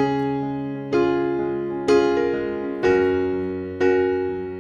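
Background piano music: a soft chord struck about once a second, each left to ring and fade before the next.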